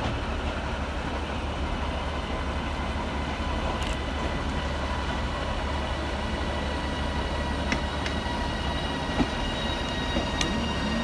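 Two coupled Class 331 electric multiple units moving through the station: a steady rumble with a faint, even whine and a few sharp clicks about 8 and 10 seconds in.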